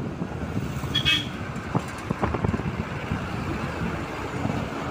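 Steady road and engine noise of a moving vehicle, heard from inside it, with a short horn toot about a second in.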